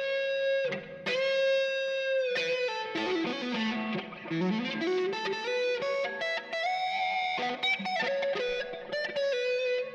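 Gibson Custom Shop ES-339 electric guitar with '57 Classic humbuckers, played on the neck pickup through a Kemper profiler on an overdriven gain patch. It plays a single-note lead line: long held notes with slight bends, a quick run of lower notes in the middle, then a higher held note.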